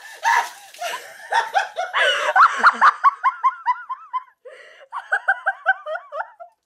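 High-pitched laughter in quick repeated bursts, about four or five a second, in two runs that stop abruptly near the end.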